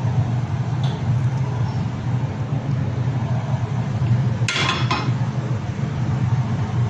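A steady low hum with no clear source, with two short clinks of kitchenware a little after halfway through.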